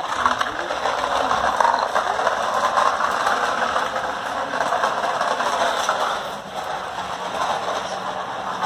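Plastic toy truck dragged on a string, its wheels rolling and rattling along the ground in a continuous scraping clatter, briefly quieter about six and a half seconds in.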